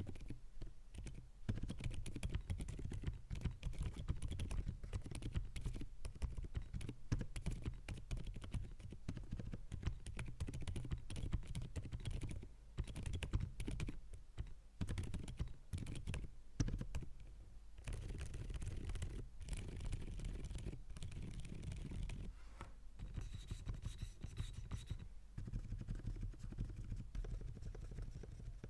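Continuous typing on a GAS67 65% custom mechanical keyboard with lubed Outemu Silent Creamy silent switches: a steady stream of soft, dampened keystrokes with a few short pauses.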